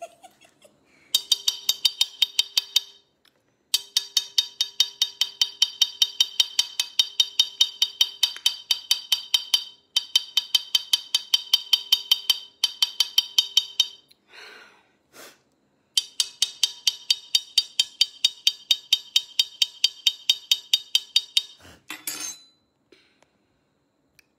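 Glass pot lid with a metal rim struck rapidly with a utensil, about six even strikes a second, each ringing. The beating comes in long runs with short breaks and stops a little after 21 seconds in.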